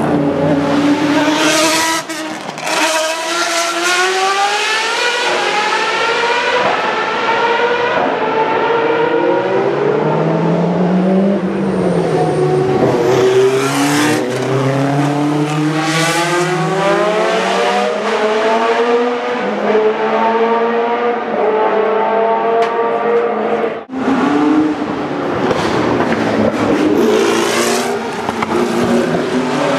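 Historic Formula 1 racing cars' engines running hard through a tight hairpin, one car after another. The revs climb and drop repeatedly, with a short break in the sound just before the last car.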